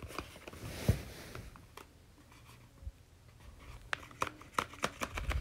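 Paper dragon puppet being handled on a blanket: soft rustling of paper and fabric, one sharp knock about a second in, and a run of light clicks near the end.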